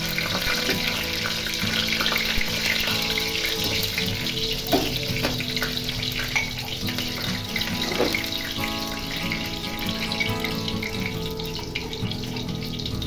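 Green chillies sizzling in hot oil with cumin seeds and a dried red chilli in a kadai, the tempering stage of the dish. The hiss starts suddenly as they hit the oil, with scattered pops, and eases a little over the seconds that follow.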